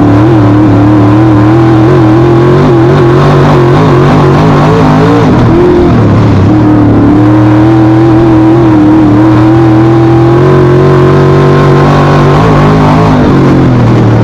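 Race car engine running hard at high, fairly steady revs, its pitch wavering up and down as the throttle is eased and reapplied, with a short dip about five seconds in and another near the end.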